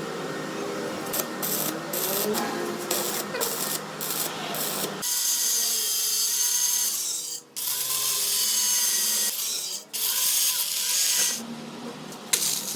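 Power tool working a part: a harsh, hissing machining noise that changes character about five seconds in and cuts out briefly twice.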